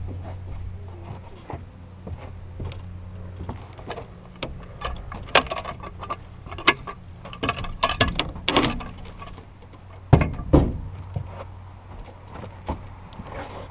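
Irregular knocks, clanks and scrapes of a heavy log being worked against a metal trailer frame, with the loudest knocks about five, eight and ten seconds in, over a steady low hum.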